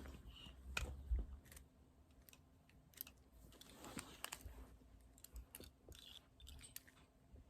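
Faint, irregular clicking of a plastic Rubik's cube as its layers are turned by hand.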